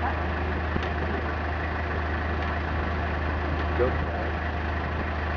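Car engine idling steadily with a constant low hum.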